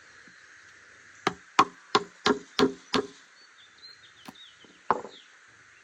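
Six quick knocks of a tool striking wood, about three a second, then two more a second or two later: digging out a screw embedded in a pine log, which the sawmill blade had hit.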